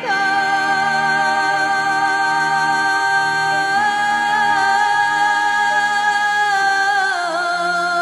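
Background music of long, held notes that shift pitch just at the start and slide lower about seven seconds in.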